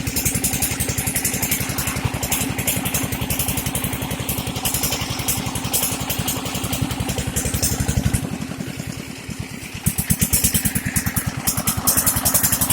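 Dongfeng single-cylinder diesel engine running steadily with a fast, even chug; about eight seconds in its beat goes lighter and quieter for a couple of seconds, then comes back to full strength.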